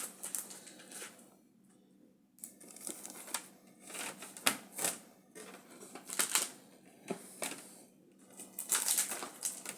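Thin plastic LEGO baseplates being handled, with irregular clicks, taps and scraping as they are shifted and shuffled against each other. There is a short lull about a second and a half in.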